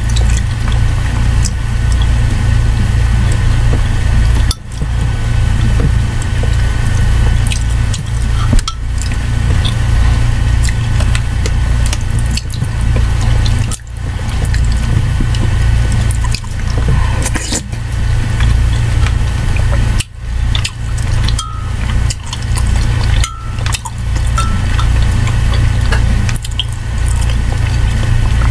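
Vegetable soup being eaten close to the microphone: spoon scraping and clinking in a ceramic mug, with wet slurping and chewing, over a steady low hum.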